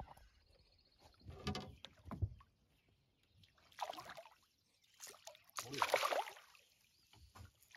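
A hooked bass thrashing at the surface right beside the boat as it is reached for by hand: water splashing in three separate bursts, the loudest about six seconds in.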